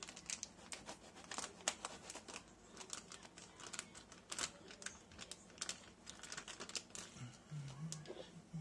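Clear plastic shrimp-transport bag crinkling and crackling in a dense run of sharp rustles as it is handled and opened. The crackling thins out about seven seconds in.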